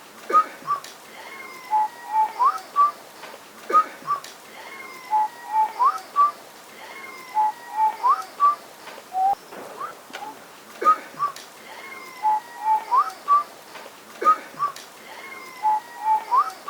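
A person whistling a short melodic phrase of quick notes and sliding pitches, repeated about every three and a half seconds.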